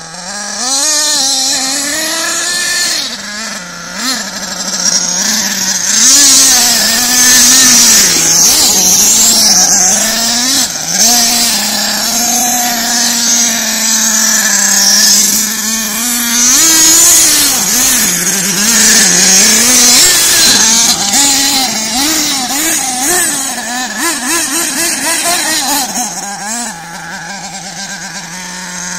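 Small engine of a radio-controlled model car, idling, then revving up and down over and over as the car drives, and settling back to a steady idle near the end. A strong hiss runs along with it.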